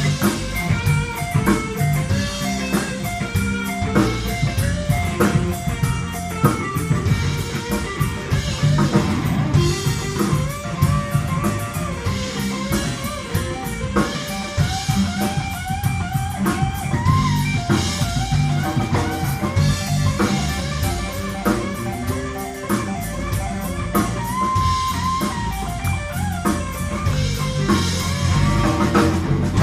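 Live rock band playing an instrumental passage: electric guitars and drum kit, with a guitar melody of bending notes over the rhythm.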